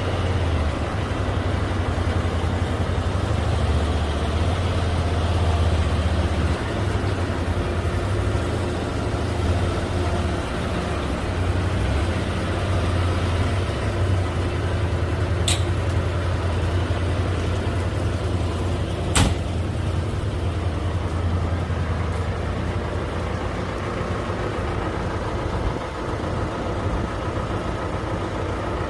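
Vehicle engine running steadily with a low hum, with two sharp clicks or knocks about halfway through.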